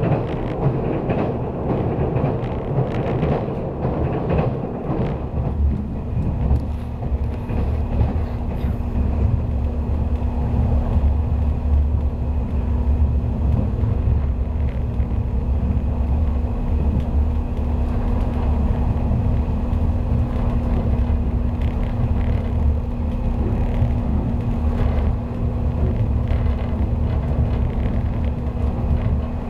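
Running noise of a 485-series electric train at speed, heard inside the passenger car: a steady low rumble of wheels on rail. A steady hum becomes more prominent about six seconds in.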